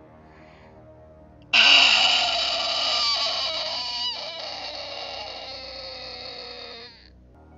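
A loud, animal-like creature cry breaks in about a second and a half in, holds for about five seconds while slowly fading, dips in pitch twice, then cuts off near the end.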